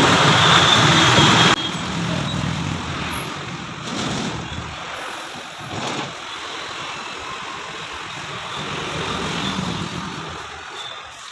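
Road traffic: a motor vehicle runs loud and close for the first second and a half, then drops off sharply, leaving a steadier hum of passing traffic that swells now and then.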